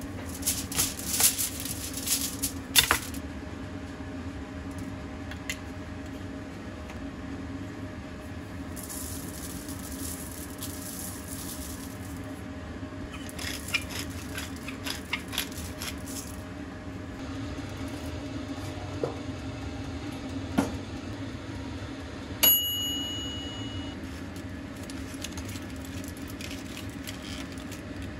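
Aluminium foil crinkling and rustling in several bouts as it is handled and folded around a head of garlic, over a steady low hum. About two-thirds of the way through, a single sharp ring sounds and fades over a second or so.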